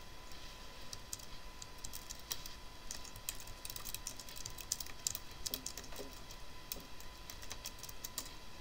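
Typing on a computer keyboard: a quick, irregular run of key clicks, with a faint steady high tone underneath.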